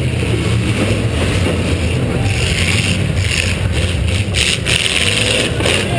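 V8 demolition derby car engine running hard, heard from on board the car, with a loud steady low drone and noise; a few short knocks or bangs come in the second half.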